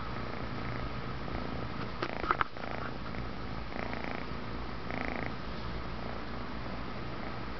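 Kitten purring steadily, close to the microphone, with a few sharp clicks about two seconds in.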